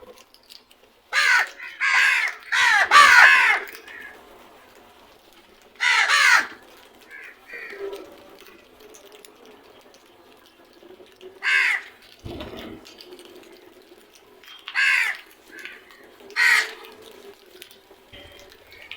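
Crows cawing: harsh calls in a quick run of three or four near the start, then single caws spaced several seconds apart. A short low thump comes about midway.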